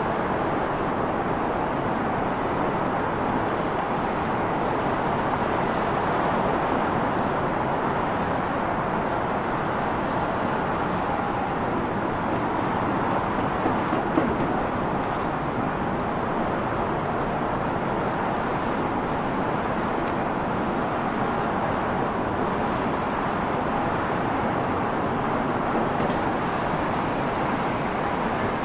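Airliner jet engines running with a steady, even roar that holds its pitch throughout.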